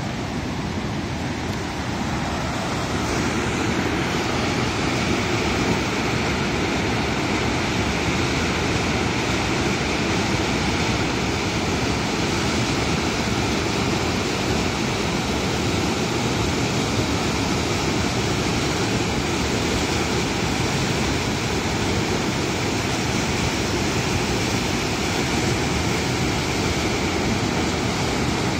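Waterfall of the Bhagirathi (Ganga) river at Gauri Kund, water pouring over the rocks into the pool in a loud, steady, unbroken rush.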